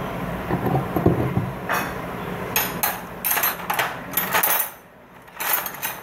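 Metal hand tools clinking and clattering in several quick bursts from about two seconds in, over a steady low hum.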